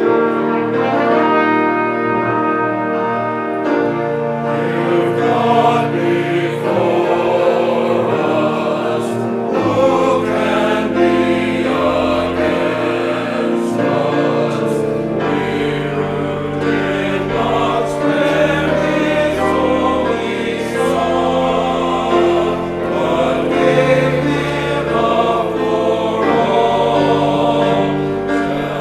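Church choir singing a hymn anthem with instrumental accompaniment that includes piano, sustained chords throughout.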